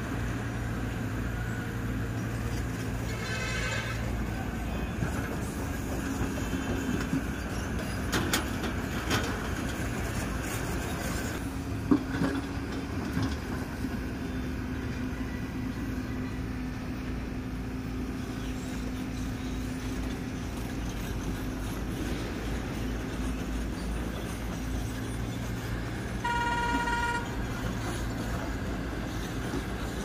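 Kobelco hydraulic excavator's diesel engine running steadily as the machine digs and swings, with a few knocks of the bucket on rock and soil between about eight and twelve seconds in. A short high-pitched tone sounds twice, about three seconds in and near the end.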